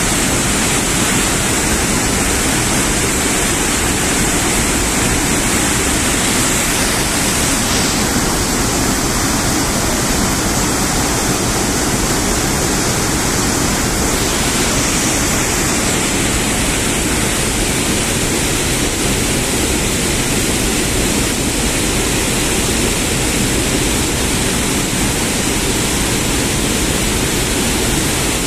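Floodwater pouring out of open dam spillway gates and crashing down the spillway: a loud, steady rush of water.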